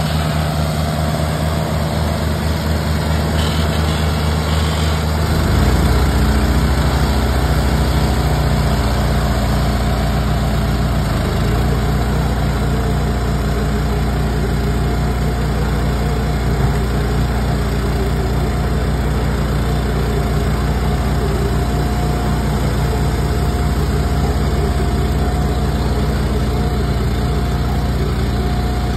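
Farm machinery engines running steadily: a John Deere tractor's diesel and the engine of a Tube-Line in-line bale wrapper. The engine note shifts and grows louder about five seconds in, and a faint steady whine joins in around the middle.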